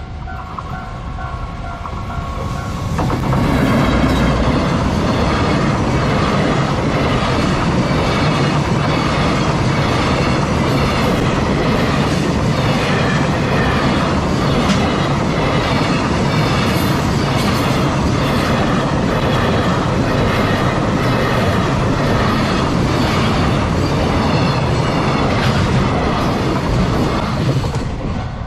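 Japanese level crossing warning bell ringing, then a long freight train hauled by an EF210 electric locomotive passes through the crossing from about three seconds in. Its wagons' wheels clatter rhythmically over the rail joints for the rest of the passage.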